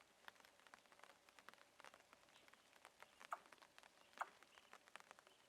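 Near silence: faint scattered ticks, with two brief faint tones, about three and four seconds in.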